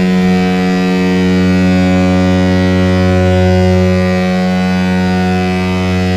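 San Jose Sharks arena goal horn sounding one long, steady, loud blast: a deep note with many overtones, the horn that marks a goal scored.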